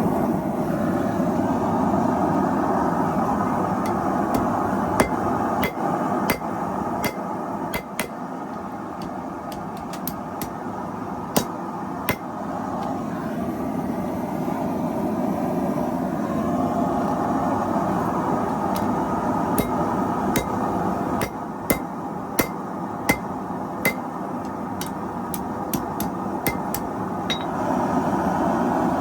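Hammer striking hot steel on an anvil while forging a scrap-steel knife blade: each blow is a sharp metallic ring. The blows come scattered at first, then in a quicker run in the second half, over a steady rushing noise.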